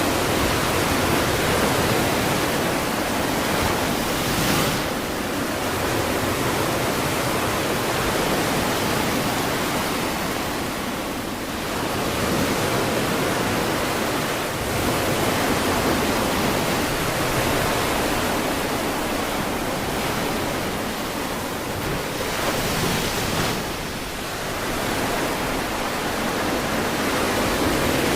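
Ocean surf washing onto a beach: a steady rushing wash that swells and ebbs slowly as waves break, a few seconds apart.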